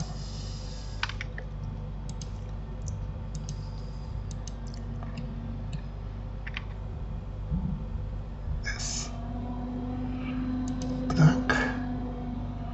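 Scattered single clicks of computer keyboard keys and mouse buttons, entering shortcuts while modelling in Blender, over a steady low hum. Near the end there are a couple of short breathy sounds.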